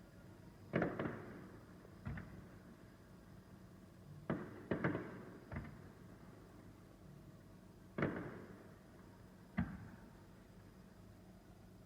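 Aerial firework shells bursting: a string of about eight separate booms at uneven intervals, each with a short echoing tail. The loudest come about a second in, around the middle, and about two-thirds of the way through.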